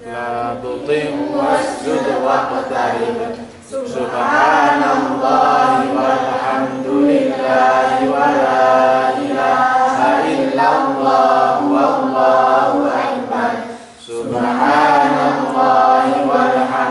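A boy reciting the Qur'an aloud in Arabic in a melodic chant into a microphone. He draws out long, wavering notes, with short pauses for breath about four seconds in and again a few seconds before the end.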